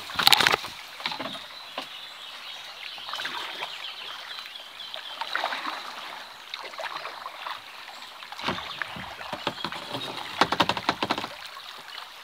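Kayak paddle strokes splashing in a fast, shallow river riffle, with water rushing past the hull. The biggest splashes come right at the start and again in a cluster near the end.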